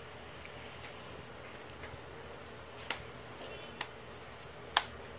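Hands rolling a ball of chapati dough between the palms: soft rubbing, with a few sharp little clicks in the second half, the loudest near the end.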